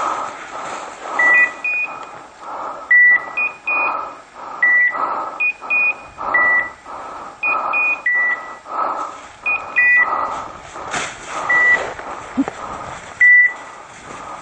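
Electronic beeper collars on hunting dogs sounding. One gives a single beep about every second and a half to two seconds, and another a higher double beep in between. Underneath is a steady crunch of footsteps through dry leaves.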